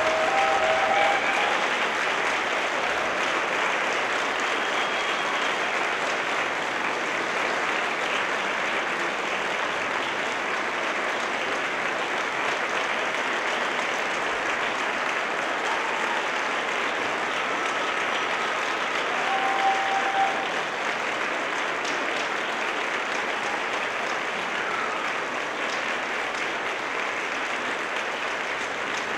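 Concert audience applauding steadily and at length, with a few short calls rising above the clapping near the start and again about two-thirds of the way through.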